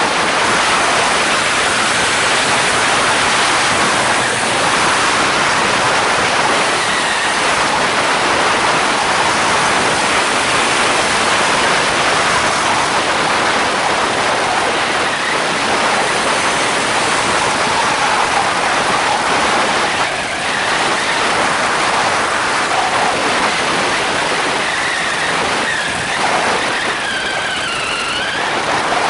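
Steady rush of wind on the microphone over the Polini Thor 250 two-stroke engine of a homemade mono trike running in flight, its pusher propeller turning. Near the end a faint whine wavers in pitch.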